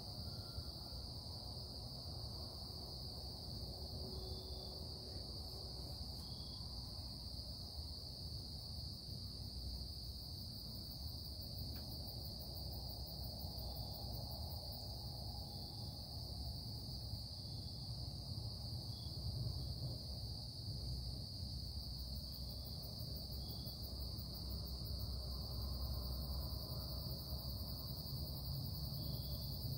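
Industrial production noise: a constant high-pitched whine over a low rumble, steady throughout.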